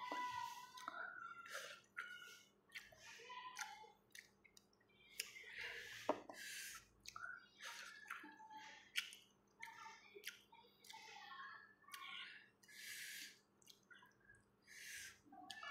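Close-up mouth sounds of someone eating rice and eggplant by hand: wet chewing and lip smacks in short, irregular clicks.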